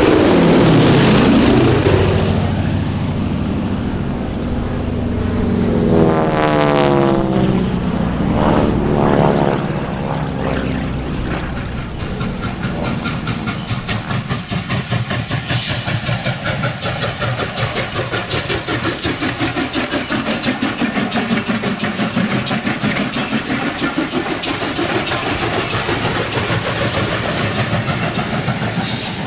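A four-engine piston bomber, a B-17 Flying Fortress, passing low overhead, its propeller drone falling and rising as it goes by. About 11 seconds in this gives way to a steam train rolling past, its wheels clicking over the rail joints in a steady rhythm.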